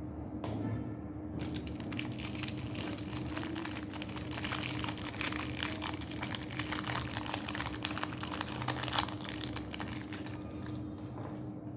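Plastic lollipop wrapping crinkling and crackling continuously, handled close up. It starts about a second and a half in and dies down near the end.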